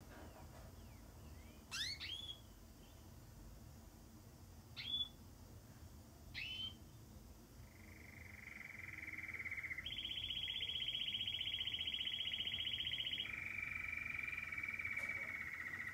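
Domestic canary singing: a few short sweeping chirps, then from about eight seconds in a long rapid rolling trill that jumps higher around ten seconds and drops lower again about three seconds later.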